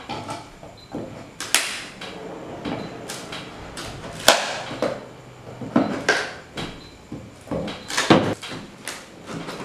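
A knife blade cutting and scraping through the packing tape and cardboard of a long shipping box, in irregular sharp strokes.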